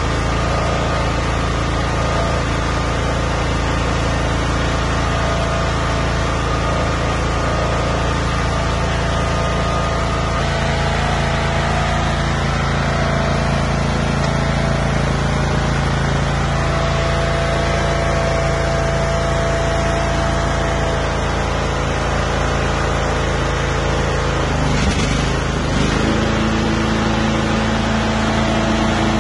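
Toro Wheel Horse 16-38 HXL lawn tractor engine running steadily, its tone changing about ten seconds in and again a few seconds before the end.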